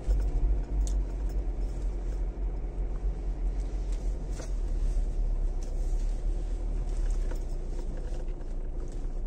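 Dacia Duster driving slowly on a dirt forest track, heard from inside the cabin: a steady low engine and road rumble, with a few faint clicks and ticks scattered through it.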